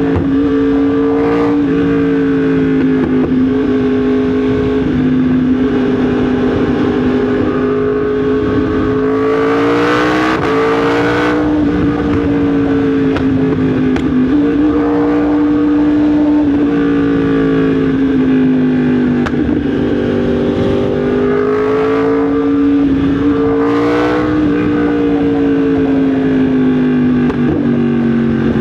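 Yamaha MT-10 SP's crossplane inline-four engine under way on the road, its note dropping and rising gently with the throttle. A brief rush of noise passes about ten seconds in.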